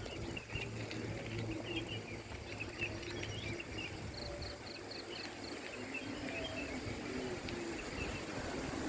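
Rural outdoor ambience: scattered bird chirps, a short run of about six quick high pips near the middle, and a steady low hum underneath.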